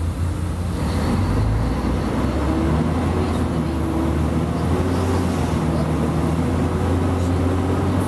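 Diesel engine of a Mercedes-Benz O-500UA bus (Caio Mondego HA body) running at a steady speed, a low even hum with a slight change in pitch about a second in.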